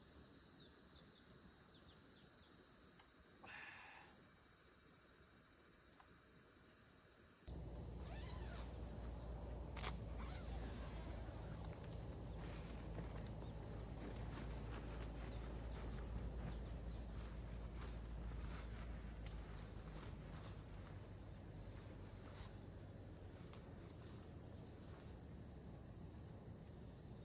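A steady, high-pitched chorus of insects, unbroken and without pulses. About seven seconds in, a low rumble comes in beneath it and runs on.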